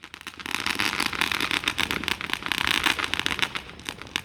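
Fireworks crackling: a dense, fast run of small pops and crackles, easing off a little near the end.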